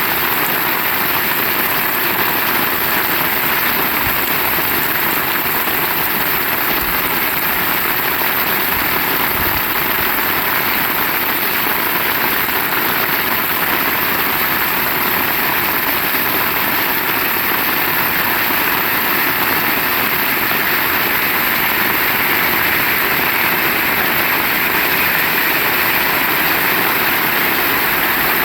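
Heavy rain falling steadily, a dense unbroken hiss of rain.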